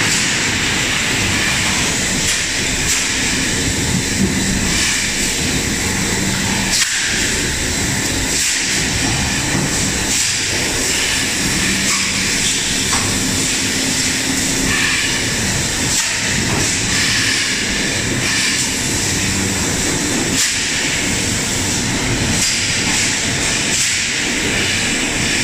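Machinery of a plastic-bottle production and packing line running: conveyors and an automatic bottle packaging machine giving a loud, steady mechanical din with a high hiss and occasional clicks.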